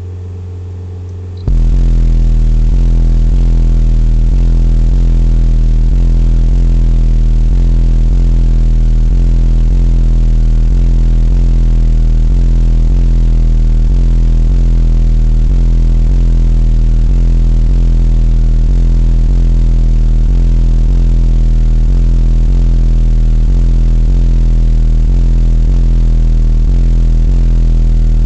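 Car audio system of two American Bass HD 15-inch subwoofers on two Sundown SAZ-3000D amplifiers playing a very loud, continuous deep bass tone with a regular pulsing. It jumps to full power about a second and a half in, after a quieter tone. Heard inside the car cabin, it is pushing about 149.5 dB on the SPL meter during a bass-race run.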